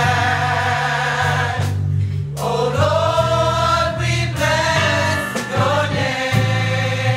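Gospel mass choir singing with a bass line underneath. The voices hold long notes, break off briefly about two seconds in, then come back in with a rising glide.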